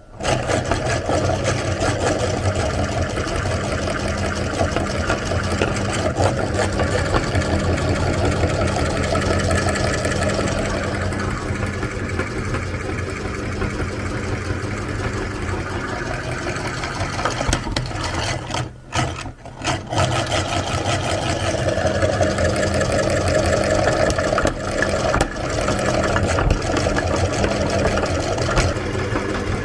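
Electric meat grinder running steadily under load as it grinds soap, its motor humming. The sound breaks off briefly about two-thirds of the way through.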